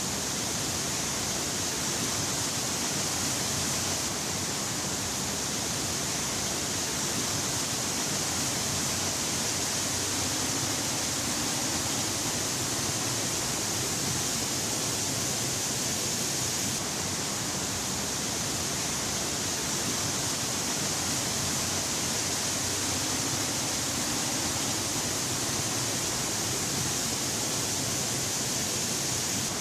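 Steady rushing of a tall horsetail waterfall, Aberdeen Falls, pouring down a rock face into its pool, as an even hiss-like water noise with a slight change in tone twice.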